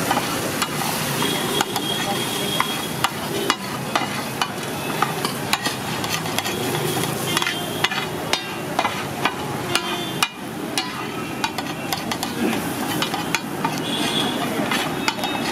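Eggs sizzling on a large flat griddle while a metal spatula scrapes and chops them, with frequent sharp clacks of the spatula against the metal.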